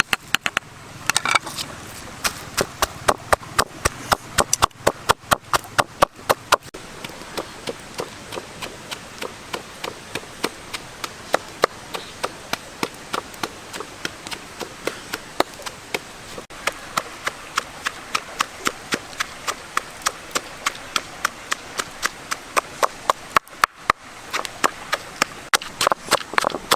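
A blade chopping on wood in a steady run of sharp strokes, about three a second, with a couple of brief pauses.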